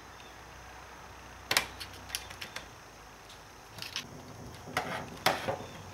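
Screwdriver prying a steel shifter lever off its shaft on a 42RH/A500 automatic transmission case: a string of sharp metal clicks and scrapes, the loudest about a second and a half in and another strong one near the end.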